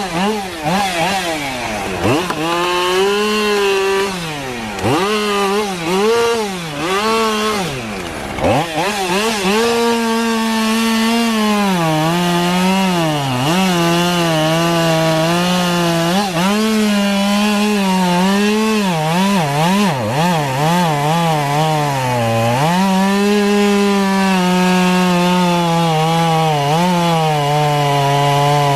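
Two-stroke chainsaw cutting wood, its engine pitch dipping and recovering again and again as the chain loads up in the cut. For the first several seconds the pitch swings up and down quickly; after that it holds higher and steadier, with repeated dips.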